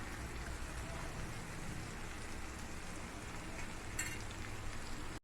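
Chicken and masala sizzling steadily in oil on a tawa over a low flame, with a brief crackle about four seconds in.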